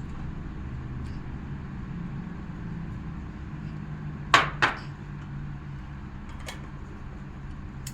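Two sharp clinks of tableware in quick succession about four seconds in, over a steady low hum.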